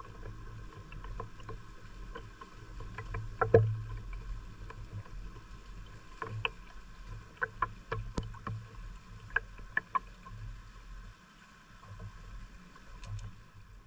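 Scattered knocks and clicks of a small boat and its fishing gear being handled, one louder knock about three and a half seconds in, over a low uneven rumble of water and wind.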